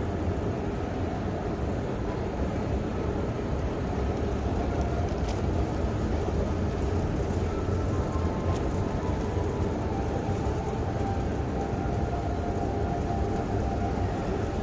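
Steady low rumble of a long escalator running in a deep underground station, with faint whining tones coming in about halfway through and two light clicks.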